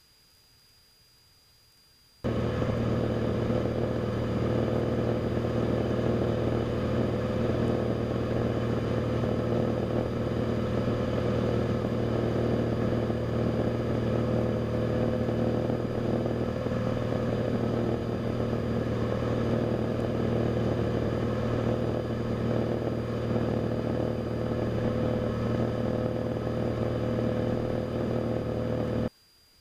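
Steady drone of a Cessna 172RG Cutlass's four-cylinder Lycoming engine and propeller, holding at constant power. It cuts in about two seconds in and cuts off abruptly near the end.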